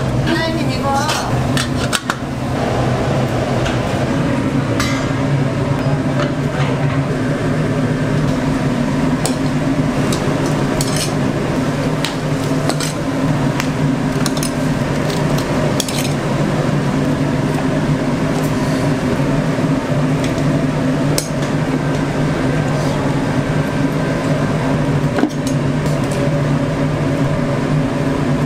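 Kitchen dishes, pots and utensils clinking and knocking now and then over a steady low hum.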